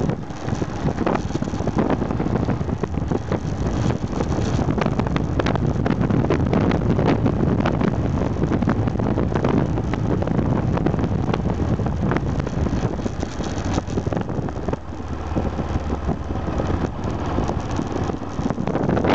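Aprilia Pegaso 650 Strada's single-cylinder engine running under way, mixed with wind buffeting the bike-mounted microphone. The level dips briefly about three-quarters of the way through.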